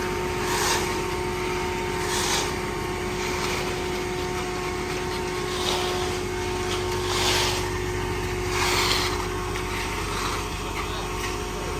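Concrete truck's diesel engine running at a steady speed, with short scraping swishes every second or two as wet concrete is worked.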